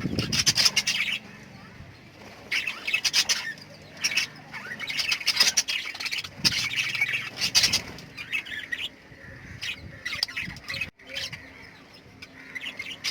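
Pet lovebirds chirping and squawking in shrill bursts that come every second or two.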